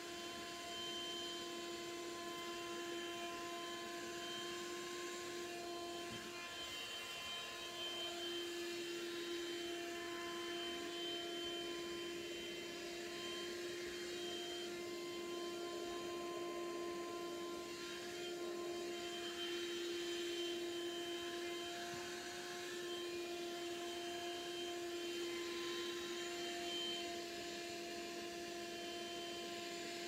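Small bagless vacuum cleaner running steadily, its motor giving a constant whine that wavers slightly now and then.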